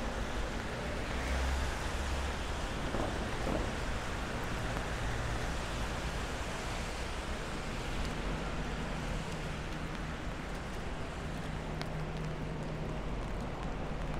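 Steady hiss of rain in a city street mixed with the rush of passing traffic, a vehicle's low engine hum swelling and fading now and then.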